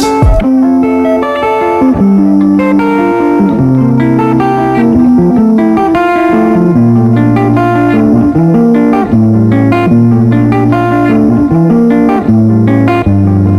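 Background music: a guitar-led instrumental track with a bass line and notes changing about once a second.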